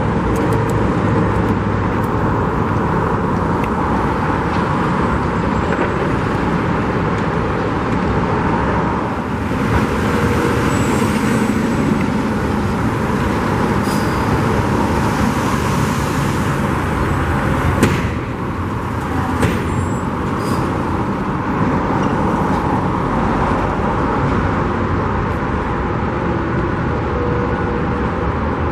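Steady road traffic noise with vehicles passing, and a few sharp knocks around the middle.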